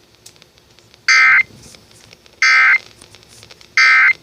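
Emergency Alert System end-of-message signal heard over the radio: three short identical bursts of buzzy digital data tones, about 1.3 s apart, marking the end of the warning broadcast.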